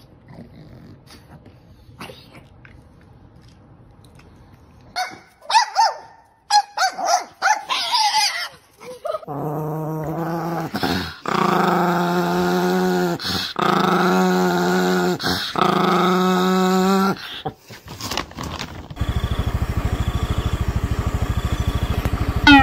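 A small dog growling in four long, drawn-out grumbles, each about two seconds long, after a few short sounds. Near the end a steady engine hum starts.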